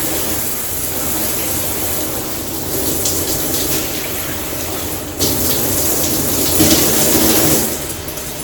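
Water spraying steadily from a six-setting shower head as its spray settings are tried out. The spray sound shifts about five seconds in, as the setting changes.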